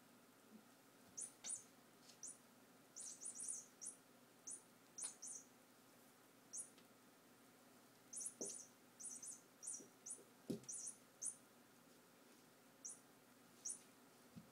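Two Maine Coon cats scuffling on a wooden floor: clusters of quick, faint clicks and scratches from their claws on the boards. There are a few soft thumps a little past the middle.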